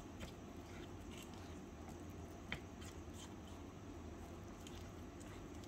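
Spatula stirring a thick flour batter in a small steel bowl: faint scrapes and squishes, with a few light clicks of the spatula against the bowl, the sharpest about halfway through.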